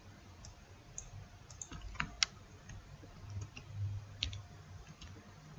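Computer keyboard and mouse clicking: scattered, faint keystroke clicks, with two sharper clicks in quick succession about two seconds in.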